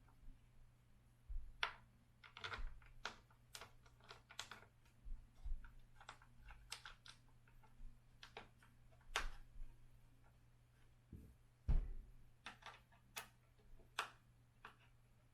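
Irregular clicks and light knocks of hand tools and small screws being handled and driven while a Onewheel is assembled, with one heavier thump a little before twelve seconds in.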